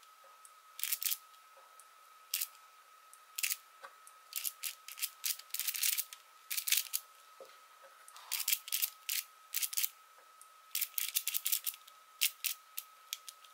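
Plastic layers of a GiiKER i3SE smart cube being turned quickly by hand during a speed-solve: short rasping clicks in fast, irregular runs, with brief pauses between groups of moves.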